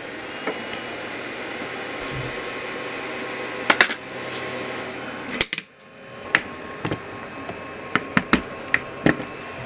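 Two small 40×40×20 mm 24 V DC cooling fans running in a plastic electronics enclosure: a steady whirring rush with a faint whine, small fans that must spin fast and so run noisy. The sound drops away briefly a little past halfway and builds back up over about a second, with several sharp clicks, two just before the drop and a few near the end.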